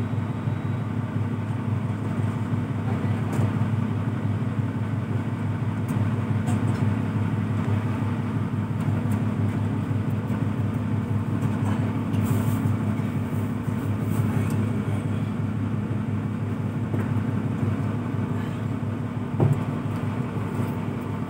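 Boat engine running steadily with a low, even drone. A brief thump comes near the end.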